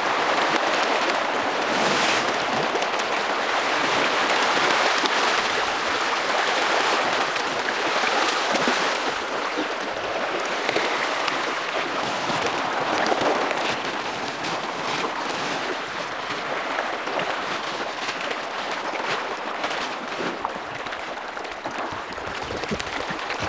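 A dense crowd of pangas catfish feeding at the water's surface on floating feed pellets, making a continuous crackle of many small splashes and slurps. It eases slightly in the second half.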